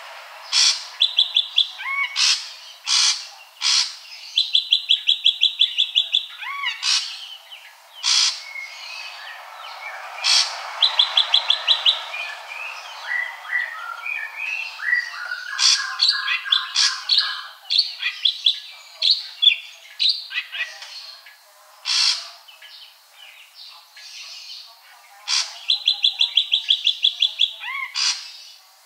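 Ashy drongo singing its basic song. Rapid trills of about ten quick notes come again and again, mixed with sharp loud chips, and a stretch of varied chattering notes falls in the middle.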